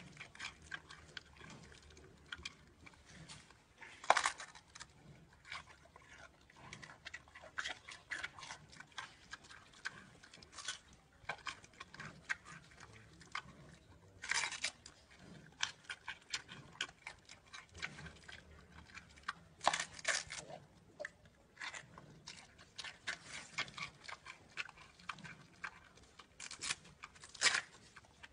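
Giant panda biting and chewing a fresh bamboo shoot: irregular crisp crunches and chewing clicks, with a few louder crunches as it bites off pieces, about four seconds in, near halfway, around twenty seconds and near the end.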